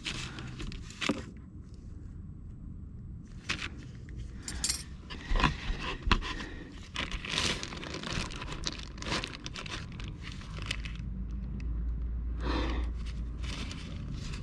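Irregular handling noise: scraping, rustling and sharp clicks of objects being moved and knocked about, with a low steady rumble building near the end.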